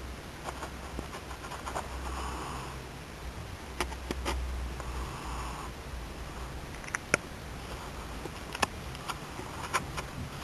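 Domestic cat snoring while asleep, soft breathy snores every few seconds. A few sharp clicks fall between them, the loudest about seven seconds in.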